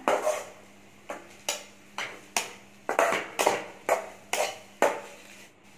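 Metal spatula scraping and knocking against an aluminium kadai as chapati strips and shredded vegetables are stir-fried, about two strokes a second, each dying away with a short metallic ring. The strokes stop near the end.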